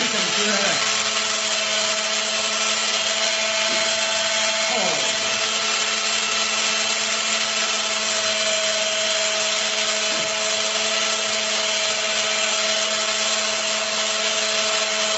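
Electric grinder running steadily as it is used to cut hair, a constant motor whine with several fixed pitches.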